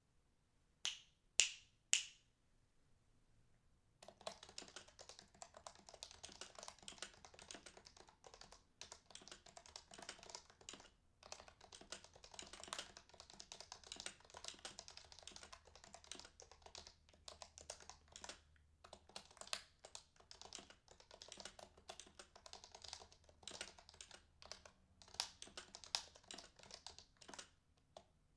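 Three sharp clicks about half a second apart, then, from about four seconds in, continuous typing on an HHKB Professional 1 keyboard with lubed heavy Topre BKE Replica domes.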